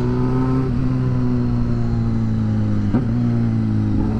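Motorcycle engine running steadily as the bike is ridden at road speed, its note drifting slowly up and down, with a brief dip and knock about three seconds in.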